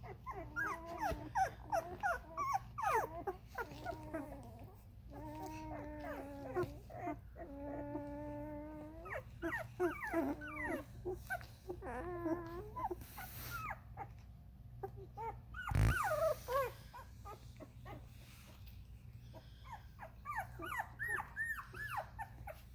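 13-day-old Vizsla puppies whimpering and squeaking: many short squeaks that bend up and down, two longer steady whines in the middle, and a single bump about two-thirds of the way through.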